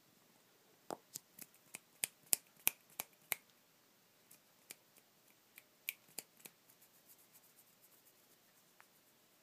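A quick run of about ten sharp clicks, roughly three a second, then a few scattered clicks and faint ticks.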